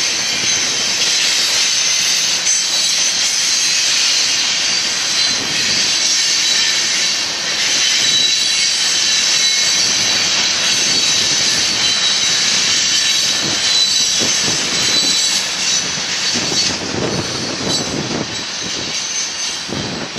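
Loaded rock gondola cars of a freight train rolling past: a steady rumble of steel wheels on rail with a high-pitched whine on top, and scattered knocks and clacks growing more frequent in the second half.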